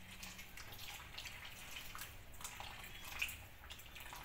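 Coconut milk poured in a thin stream into a pot of boiling fish curry: a faint liquid trickle and splash over the curry's bubbling.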